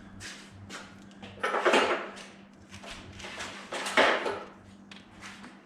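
Tools and metal hardware clattering and knocking as they are handled, with louder bursts of clatter about one and a half and four seconds in, over a faint steady hum.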